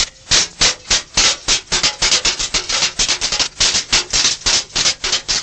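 Coppersmiths' hand tools, hammers and punches, tapping on copper trays in a quick, steady rhythm of several strokes a second.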